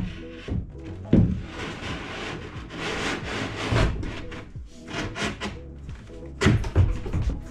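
A wooden wardrobe shelf being set onto its brackets: a knock about a second in, then scraping as it slides into place, and a few light knocks, over background music.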